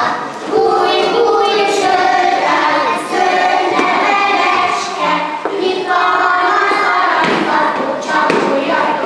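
A group of young children singing a song together in unison, with held notes.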